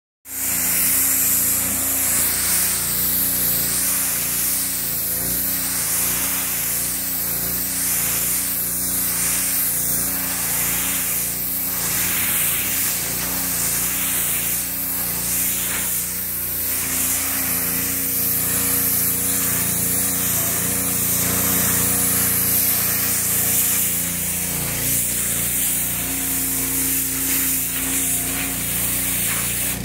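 Pressure washer running steadily, a constant motor and pump hum under the loud hiss of the high-pressure water jet blasting across fabric cushions.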